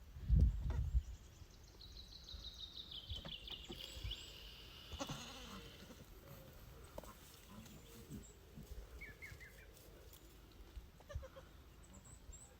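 Goats bleating, faint, including one long high-pitched call that slides slowly down in pitch. A few loud low thumps come about half a second in.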